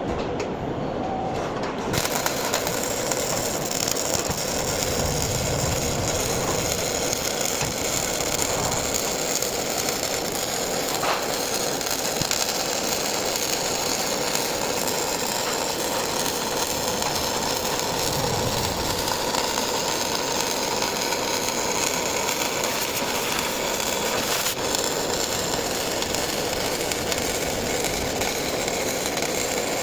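MIG welding arc crackling steadily during a long continuous weld bead.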